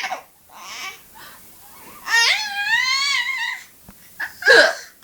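Baby vocalising: a few short breathy sounds, then one long high-pitched squeal about two seconds in that rises and falls, and a short sharp vocal burst near the end.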